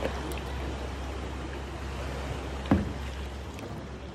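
Shallow seawater sloshing and lapping around a person standing waist-deep, over a steady low rumble. A single brief, louder sound comes about three seconds in.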